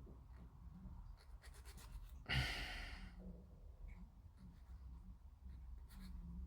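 A person sighing out once, a short breathy exhale about two seconds in, among a few faint light clicks from small plastic kit parts being handled.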